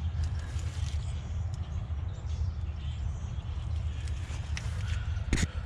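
A steady low rumble with scattered light taps, and one sharp knock near the end.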